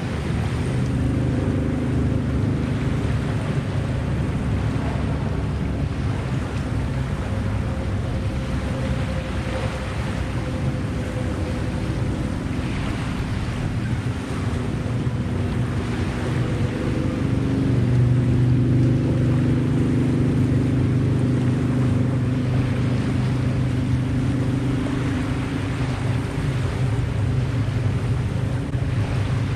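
A steady engine drone that grows louder and a little higher in pitch about two-thirds of the way through, over wind noise and lapping water.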